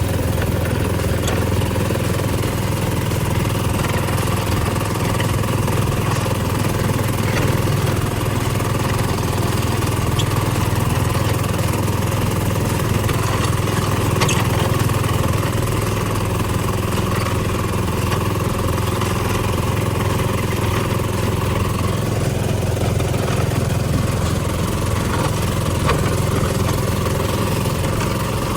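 Steady low engine hum, running evenly at one pitch.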